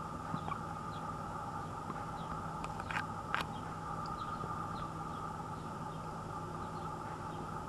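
Backyard ambience: a steady hum with faint, scattered short high bird chirps, and two short sharp sounds about three seconds in.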